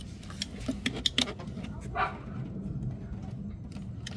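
Metal tool clinks of a wrench working the nut that holds an EGR valve, a few sharp clicks in the first second and a half. A short, louder sound comes about two seconds in, over a steady low hum.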